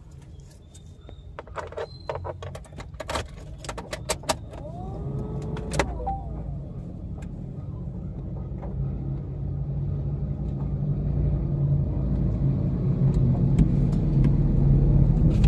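Hard plastic clicks and knocks of a car phone holder being handled and adjusted, a cluster of them in the first six seconds. Then a low rumble that grows steadily louder toward the end.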